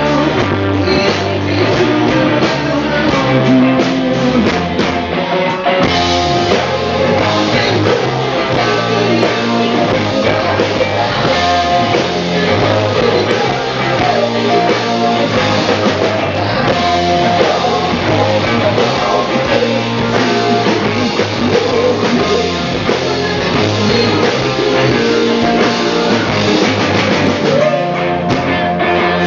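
Rock band playing live: electric guitars and drum kit with a male lead vocal.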